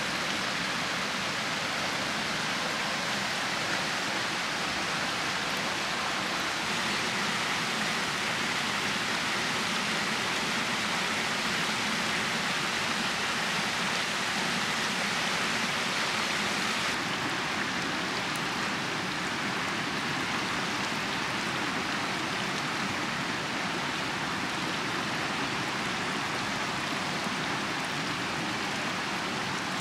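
Steady rush of a flowing stream, an even hiss of running water with no breaks; its tone shifts slightly twice, about a quarter and halfway through.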